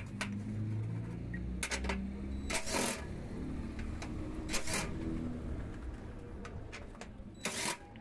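DeWalt cordless impact driver running bolts into a washing machine's transmission mounting, with three short, loud hammering bursts as the bolts seat, about two seconds apart, and light clicks of the bit and bolts in between.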